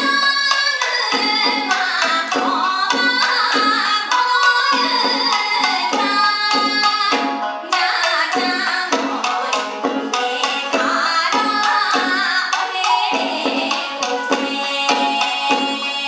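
Japanese folk song (min'yō) sung by a woman in a bending, ornamented vocal line, accompanied by a shakuhachi bamboo flute and a taiko drum beaten with sticks in a steady rhythm.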